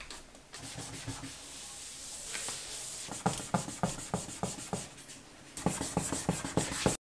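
A cloth wiping across a hard desktop: a steady rubbing swish, then about three seconds in, quick back-and-forth scrubbing strokes, roughly four a second, growing faster near the end.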